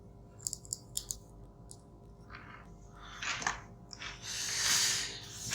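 Light clicks, then short rasping scrapes and a longer scraping rustle near the end, as wires are handled and connected to an air conditioner's circuit board.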